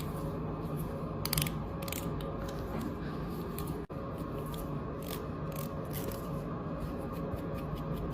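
Bangles and rings clicking and clinking against each other in a string of irregular sharp clicks, over a steady low hum.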